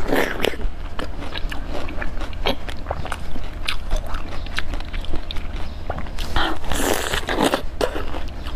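Close-miked mukbang eating: crisp bites and crunchy chewing, made up of many short sharp cracks, with louder crunching bursts at the start and again about six to seven and a half seconds in.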